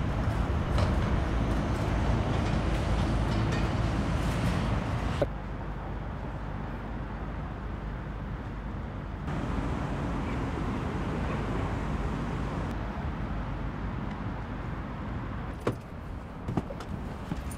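Steady outdoor traffic noise from road vehicles, its level dropping abruptly about five seconds in, with a couple of short knocks near the end.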